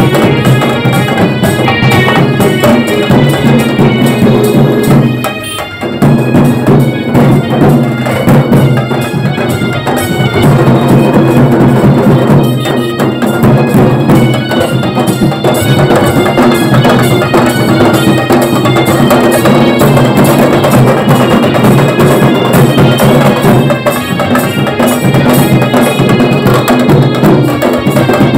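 Bengali wedding band party playing loud melodic music over steady drums, recorded through a phone microphone. The music dips briefly about five seconds in.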